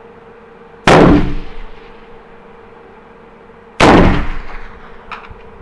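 Two rifle shots about three seconds apart, each sudden and loud with a ringing tail dying away over about a second in the booth. A few light clicks follow near the end.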